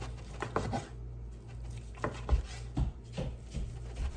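A dull kitchen knife cutting cooked chicken breast on a cutting board: irregular knocks and scrapes, a few strokes a second at most.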